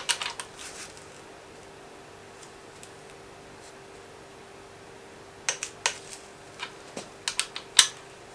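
Torque wrench ratcheting on the main bearing cap bolts of a BMW M52B28 engine block as they are tightened to 20 Nm: a few sharp metallic clicks at the start, then a quick series of clicks over the last three seconds.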